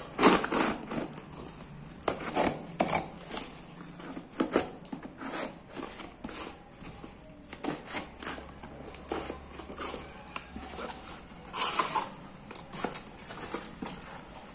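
A box cutter slicing through packing tape on a cardboard parcel: irregular scrapes, rips and rustles of tape and cardboard, loudest just after the start and again about twelve seconds in. Near the end a boxed product slides out of the cardboard.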